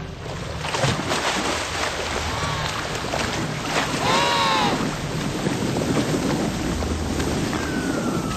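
Emperor penguins sliding on their bellies over ice and snow, a rough, scratchy hiss with many short scrapes. A brief rising-and-falling call sounds about four seconds in, with a fainter one shortly before.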